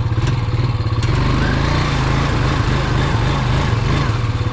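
Four-wheeler ATV engine running steadily under load while driving through a deep, muddy water hole, with a rushing hiss of churned water and mud over it from about a second in.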